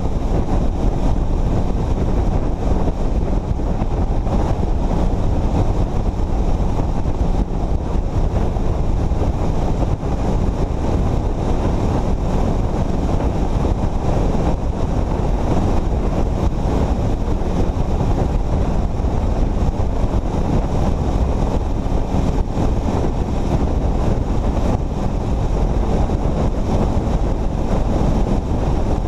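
Steady wind rush on the microphone with the rumble of tyres and engine from a vehicle cruising at highway speed.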